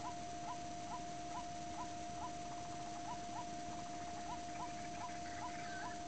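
White-breasted waterhen (kareo) calling: a short rising note repeated evenly about twice a second over a steady tone. From about four and a half seconds in, a rougher, higher-pitched call joins it.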